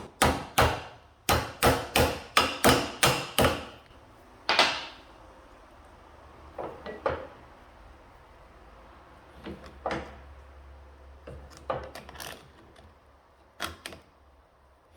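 A hammer striking the metal tabs of a car door latch to bend them into place: about ten quick, sharp blows, then one more a second later. Scattered light clicks and knocks of parts being handled follow.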